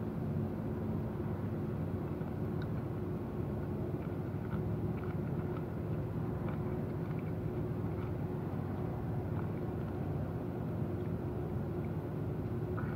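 Steady low mechanical hum with a couple of held tones, under faint small clicks of someone chewing grapes.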